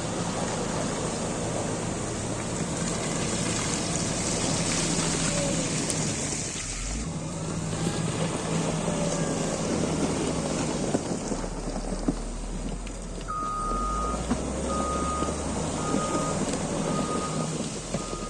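Motor grader's diesel engine running under work, with its back-up alarm starting to beep steadily about two-thirds of the way in, the sign that the grader is reversing.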